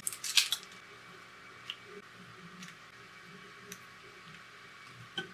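A plastic packet of sliced ham crinkles and clicks sharply for about half a second as it is handled and opened. After that come only a few faint, scattered ticks and taps while the ham slices are laid out on a plastic cutting board.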